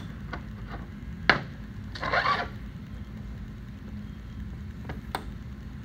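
Small steel tool parts being handled on a metal workbench: a few sharp clicks, the loudest about a second in, and a brief scrape about two seconds in, over a steady low hum.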